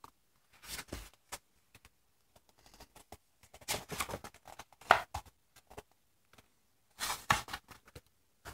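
Paper pages of a large picture book being handled and turned: three bouts of rustling and flapping, about a second in, in the middle, and near the end, the middle one the loudest.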